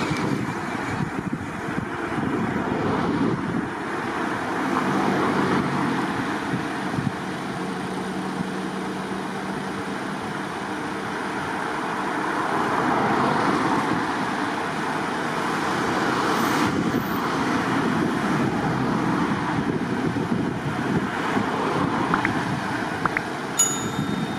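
Boeing 747-400 freighter's four jet engines on landing approach: a steady roar that rises and falls a little in loudness as the aircraft passes.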